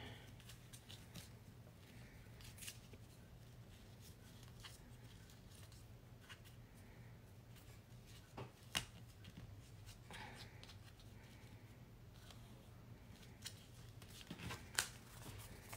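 Faint rustling and scattered small clicks of hands handling cardstock and wrapping twine around a paper card panel, over a low steady hum.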